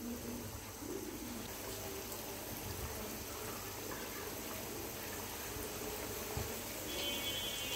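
Chicken pieces deep-frying in hot oil on low heat, a steady bubbling sizzle, with more pieces added to the pan. A brief high-pitched tone sounds about seven seconds in.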